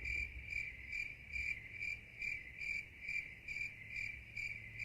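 Cricket chirping steadily: a high, even pulsing trill, about four pulses a second.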